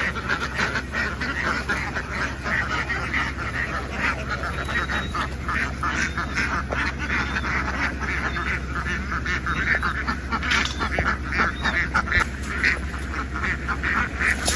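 A large flock of domestic ducks quacking all at once, a dense chorus of many overlapping calls that never lets up.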